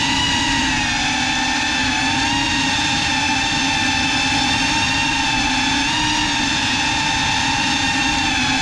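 GEPRC CineLog 35 ducted 3.5-inch FPV cinewhoop on 6S: its motors and propellers give a steady, loud whine at cruising throttle, the pitch dipping slightly a few times. Heard close-up from the drone's onboard GoPro.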